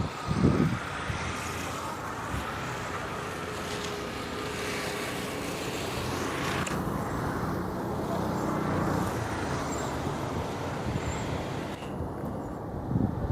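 Cessna Citation XLS+ business jet's turbofan engines running steadily: a continuous rush of noise with a faint whine that drifts slowly in pitch and swells a little around the middle.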